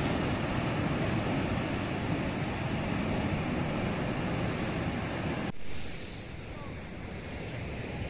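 Ocean surf breaking and washing over shoreline rocks, a steady rushing; about five and a half seconds in it drops suddenly to a quieter, more distant rush.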